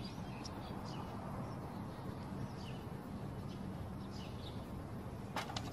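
Outdoor background with a steady low hum and faint, scattered bird chirps, and a brief louder call near the end.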